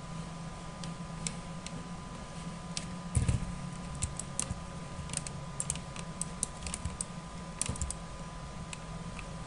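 Scattered clicks of a computer mouse and keyboard, some in quick runs, over a steady low hum and a faint steady tone. A dull thump comes about three seconds in.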